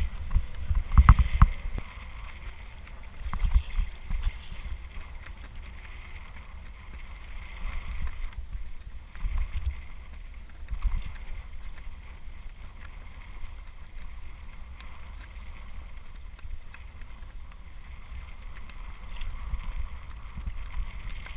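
Wind buffeting the microphone in gusts, heaviest in the first four seconds, over small waves lapping and slapping against a plastic kayak hull.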